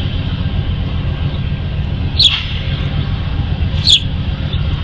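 Steady low rumble from a standing diesel-hauled passenger train, with a bird giving two short, sharp falling chirps over it, about two seconds in and again near four seconds.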